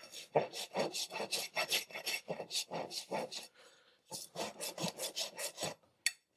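Farrier's rasp filing a horse's hoof wall in quick back-and-forth strokes, about four a second, with a brief pause a little past halfway. A single sharp click near the end.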